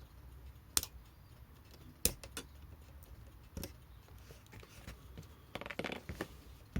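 Small metal clicks and taps of tweezers and alarm-clock parts being handled while a pin is taken out of the movement: single sharp ticks at scattered moments, then a brief cluster of clicking and scraping near the end.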